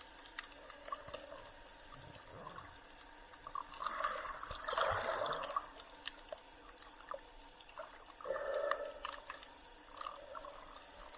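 Water sloshing and gurgling around a snorkeller, with scattered small clicks. Louder surges come about four to five seconds in and again near eight seconds.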